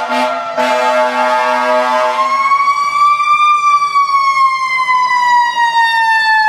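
Fire truck's air horn sounding, with a short break, then cutting off about two seconds in, while its siren winds up in pitch and then slowly winds down.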